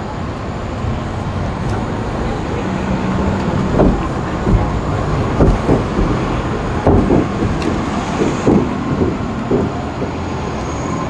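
City street noise: a steady hum of traffic, with a run of knocks and clatter for several seconds in the middle.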